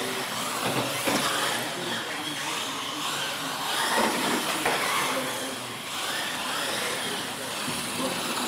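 Radio-controlled monster trucks running on a concrete floor, their electric motors whining and rising and falling in pitch as they speed up and slow down, with tyre noise and a couple of knocks as they land off the ramps.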